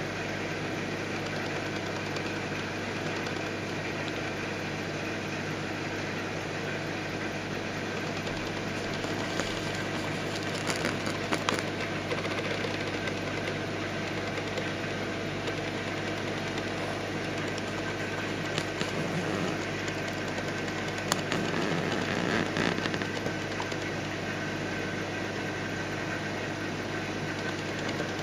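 Steady hum and whir of a Red Sea Max 130D reef aquarium's built-in pumps and fans, with a constant low drone. A few brief clicks come about ten seconds in and again a little after twenty seconds.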